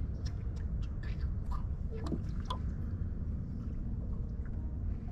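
Scattered small pops, drips and plops of water at the surface of a calm pond, a dozen or so spread irregularly, some with a short ping, over a steady low rumble.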